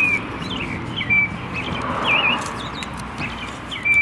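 Birds chirping: a steady run of short, high chirps and twittering notes, some sliding and some zigzagging in pitch.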